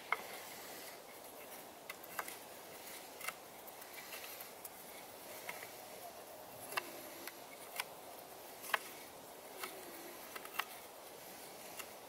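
Scattered light clicks and a few short creaks from a homemade wooden bow saw as its paracord tension is being adjusted tighter.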